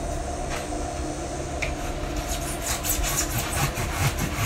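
Box cutter blade sawing through the wall of a styrofoam cooler: a squeaky scraping in short strokes, over a steady low hum.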